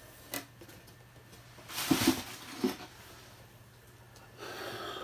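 Cardboard shipping box and its packing being handled and opened: a small click, then a loud scraping rustle about two seconds in with a knock just after, and a softer rustle near the end.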